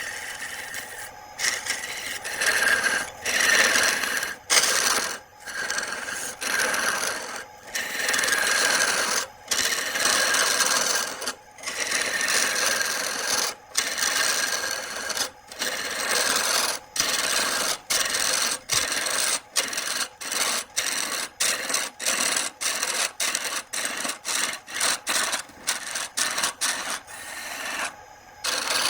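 Wood being cut or scraped with a turning tool on a lathe: a rasping scrape in repeated strokes with short breaks between them. The breaks come every second or two at first, then quicken to about two a second.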